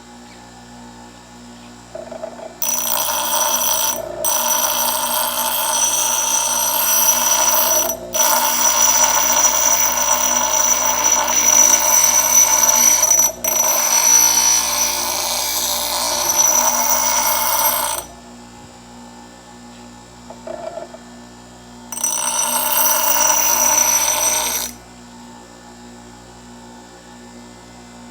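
Steel hatchet blade ground on a spinning bench grinder wheel: a loud, high-pitched grinding screech in one long pass of about fifteen seconds with three brief breaks, then a second, shorter pass of about three seconds. Between passes only the grinder's motor hums steadily as the wheel spins freely.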